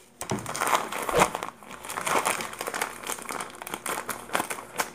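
Plastic bag of rice crinkling and rustling as it is handled, with many small clicks and light knocks.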